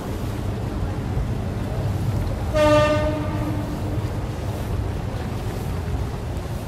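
Jet skis running on a river, a steady low engine drone, with a single short horn toot a little under three seconds in.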